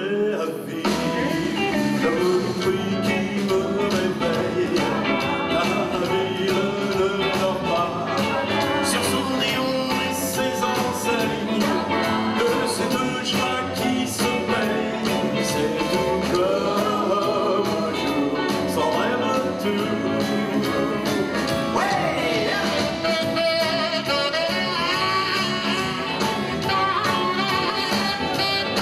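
Live rock and roll band playing, with electric guitars, drums and a baritone saxophone; the sax comes to the fore in the last few seconds.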